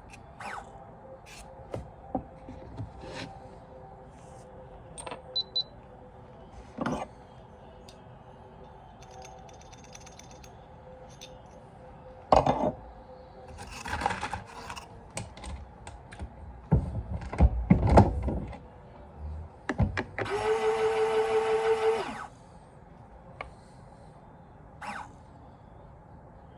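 Handloading sounds: scattered clicks and knocks of brass cases and reloading equipment being handled, heavier clattering in the middle, and a steady electric buzz lasting about two seconds near the end.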